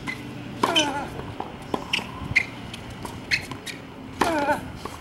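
Tennis rally on a hard court: sharp racquet-on-ball hits and ball bounces, with brief squeaks of shoes on the court. Two short vocal cries come in, about a second in and again near the end.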